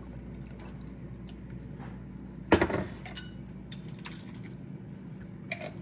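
Kitchenware clinking against a saucepan over a steady low background hum, with one louder knock about two and a half seconds in and a few light clicks after it, as fish sauce is poured into the pan.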